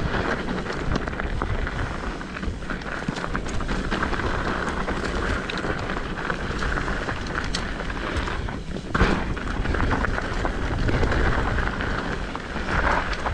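Mountain bike ridden fast down a rough, rutted dirt trail: wind rushing over the microphone, tyres rumbling on dirt and the bike rattling over bumps. Short knocks come throughout, with a harder one about nine seconds in.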